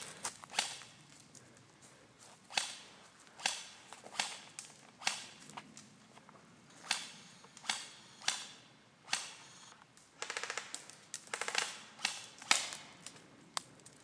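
Footsteps crunching on dry leaf litter along a forest path: a sharp crackle roughly once a second, with a couple of longer crackly steps near the end.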